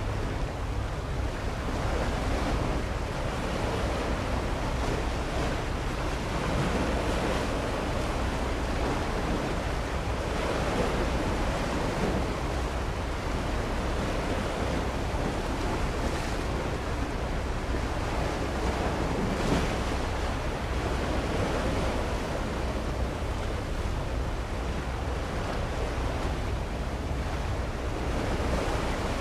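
Steady wind noise buffeting the microphone, with a low rumble, over the wash of sea water.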